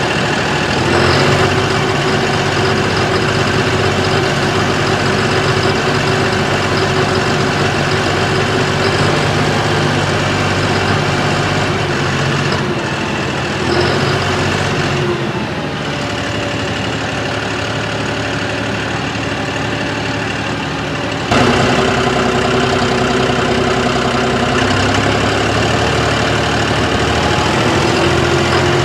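John Deere 5060E tractor's diesel engine running steadily, its speed dropping about halfway through and picking up again sharply about two-thirds of the way in. The owner reports that this brand-new engine knocks above 1500 rpm.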